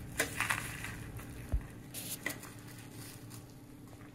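A metal serving spoon scooping soft whole potatoes out of a slow cooker and setting them on a plate: a few soft clicks and knocks in the first couple of seconds, one of them a low thump, over a faint steady hum.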